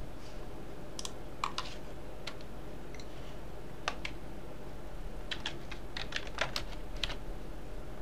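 Keys clicking on a computer keyboard: a few scattered presses, then a quick run of keystrokes from about five to seven seconds in.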